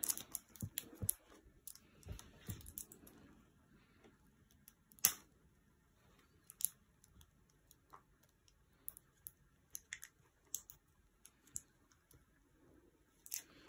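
Faint scattered clicks and rustles of a small plastic toy capsule being picked at and handled by a child's fingers, with one sharper click about five seconds in and a run of small ticks later on.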